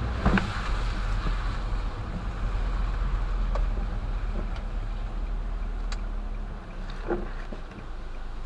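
Car driving on a wet road, heard from inside the cabin: a steady low engine and road rumble with tyre hiss. A sharp thump comes just after the start, and a few light ticks are scattered through the rest.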